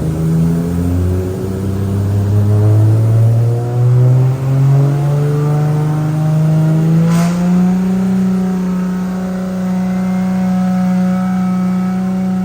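Car engine with its revs climbing slowly and smoothly for about seven seconds, then holding steady. A single sharp click sounds about seven seconds in.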